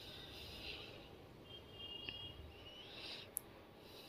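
Faint scraping and frying as chicken and onions are stirred with a metal spatula in a metal kadai over high flame; the sound comes and goes with the strokes. A short high-pitched tone about halfway through and a sharp click near the end.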